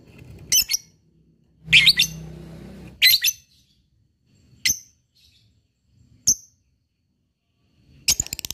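Lovebird giving about five short, sharp chirps, some doubled, spaced a second or more apart, then near the end breaking into a rapid, evenly pulsed rattling trill: the start of its 'ngekek' chatter song.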